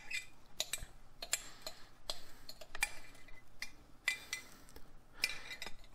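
A glass bowl and a stainless steel mixing bowl clinking and knocking as chopped, sugar-coated rhubarb is tipped and scraped from one into the other: a scatter of light, irregular clicks and taps.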